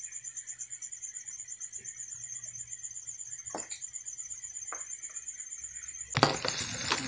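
Crickets chirping in a steady, fast, high-pitched pulse. Two sharp clicks come from hands working the motorcycle headlight's wiring connector, then a louder burst of rustling and knocks near the end as the camera is handled.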